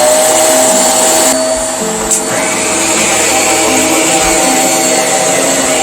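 HART Upright Pro vacuum cleaner running steadily, its motor giving a loud rushing noise with a steady high whine.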